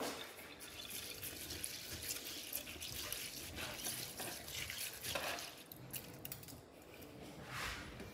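Water running softly from a kitchen tap into a sink, swelling briefly about five seconds in and again near the end.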